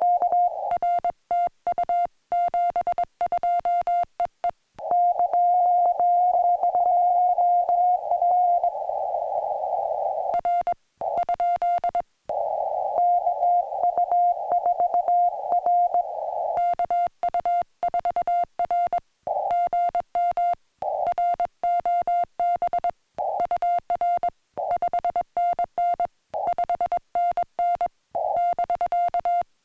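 Morse code (CW) from a portable ham radio transceiver: a single steady tone keyed rapidly on and off in dots and dashes. For a few seconds about five seconds in, and again near the middle, the tone has a hiss of band noise around it.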